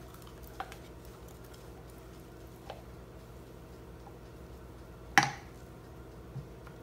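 Sweetened condensed milk poured from a can into a stainless steel bowl of beaten eggs and scraped out with a silicone spatula: soft wet sounds and a few light clicks over a steady low hum, with one sharp knock about five seconds in.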